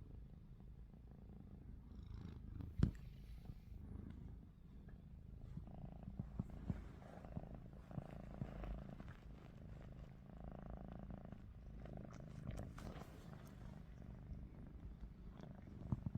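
Domestic cat purring close up: a steady low rumble. A single sharp click a few seconds in is the loudest sound.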